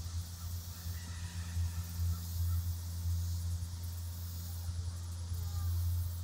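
A steady low mechanical hum, like an engine idling, with a high, even insect drone above it and a few faint chirps.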